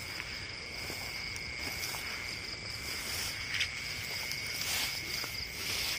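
Crickets chirring in a steady, high, unbroken drone. A few short brushing rustles, footsteps through tall grass, come in the second half.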